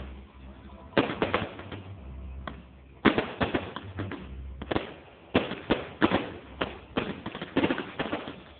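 Fireworks going off in quick, irregular bangs: a short cluster about a second in, another about three seconds in, and an almost continuous run of bangs from about five seconds on.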